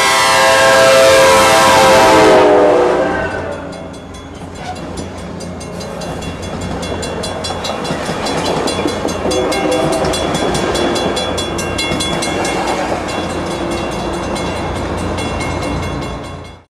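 Coaster F40PH diesel locomotive's K5LA five-chime air horn blowing a loud chord that drops in pitch as the locomotive goes by, cutting off about two and a half seconds in. Then the bilevel passenger cars roll past with steady wheel-on-rail noise while the grade-crossing bell dings in a fast, even beat.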